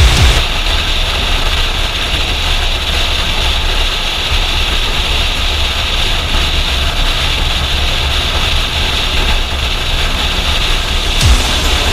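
Kawasaki motorcycle running at steady highway speed, heard from a helmet-mounted camera as a heavy, steady wind-and-engine rumble with road and wind hiss, and a single brief thump near the end.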